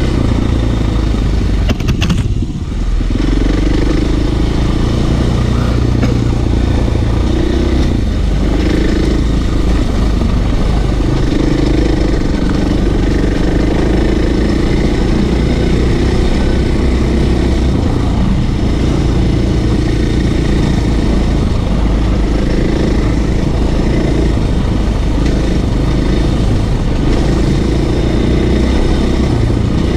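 Motorcycle engine running steadily as the bike is ridden off-road, its revs rising and falling. About two seconds in the sound dips briefly and there are a few sharp clicks.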